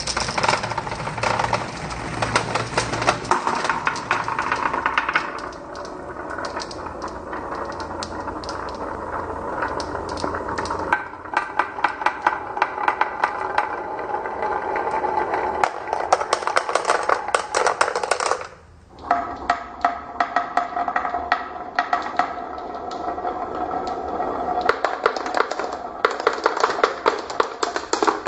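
Marbles rolling and clattering down a wooden marble-run track: a steady rolling rumble packed with rapid clicks and knocks. There is a brief lull about two-thirds of the way through before the rolling starts again.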